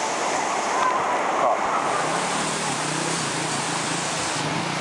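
Fast-moving floodwater rushing with a steady, loud roar. Faint distant voices sound about a second in, and a low steady hum joins from about two seconds in.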